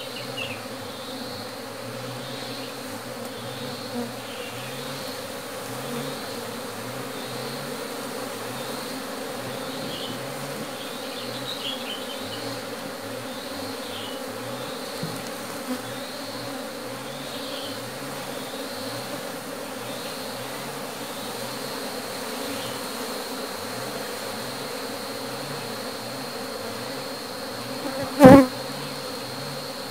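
A mass of honeybees buzzing steadily as loose bees from a sack are merged into a log hive. A single brief loud bump near the end.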